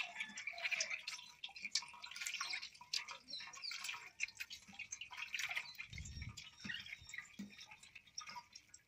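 Wet squelching and dripping of watermelon pulp and juice being squeezed and mashed by hand in a steel pot, in many small irregular splashes. A dull thump comes about six seconds in.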